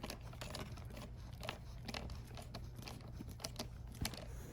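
A screwdriver tightening a small ground-wire screw into a steering wheel: faint, irregular clicks and scrapes, over a low steady hum.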